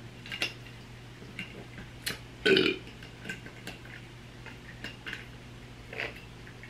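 A short burp about two and a half seconds in, among a few faint clicks and knocks over a low steady hum.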